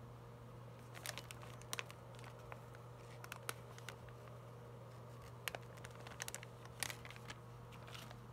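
Irregular short crinkles and clicks, like light handling of plastic wrapping, scattered over a steady low hum.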